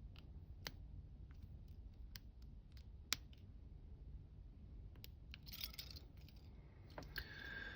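Faint, scattered metallic clicks of a lock pick working the pins of a lock under a tension tool, the sharpest about three seconds in, with short bouts of scraping and rattling from the pick in the keyway in the second half.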